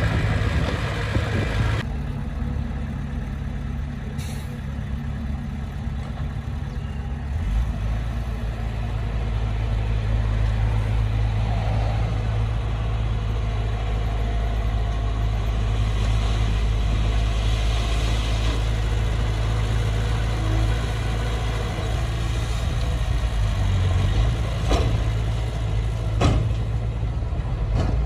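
Heavy diesel engine of earthmoving machinery running steadily, its low drone getting heavier about seven seconds in. Two sharp knocks near the end.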